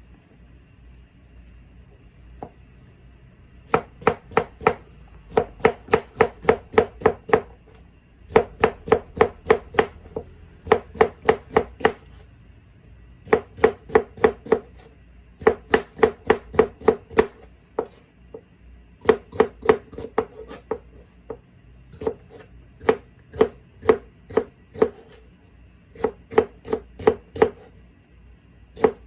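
Kitchen knife chopping rapidly on a cutting board, about five strokes a second, in runs of a second or two with short pauses between them.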